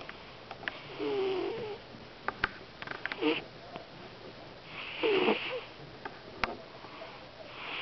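Domestic cat snoring in its sleep: a breath about every two seconds, each with a wavering tone over a soft hiss. A few sharp clicks fall between the breaths.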